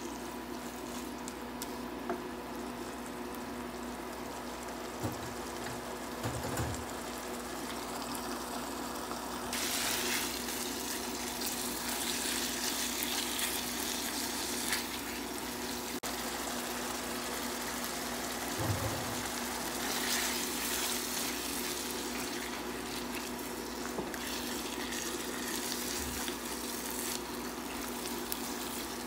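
Ground beef with tomato sauce and peppers sizzling steadily in a nonstick frying pan, the sizzle getting brighter about ten seconds in, with a few soft low knocks as a spatula stirs it.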